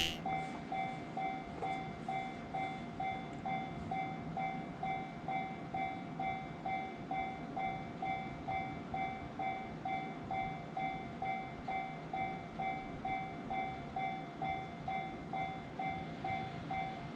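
Japanese level-crossing warning bell ringing steadily, about two rings a second.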